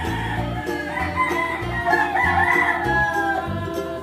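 Background music with a steady beat, and a rooster crowing over it about two seconds in, a long call that rises and falls.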